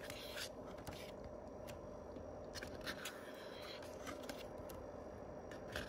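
Pages of an album's photo book being turned by hand: a few soft paper rustles and scrapes, over a steady low hum.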